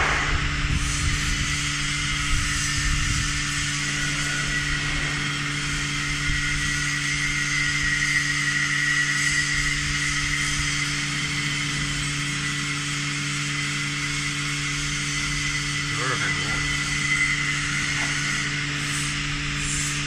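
Vacuum dual planetary mixer's machinery running steadily under vacuum: a low hum with a faint wavering high whine and hiss.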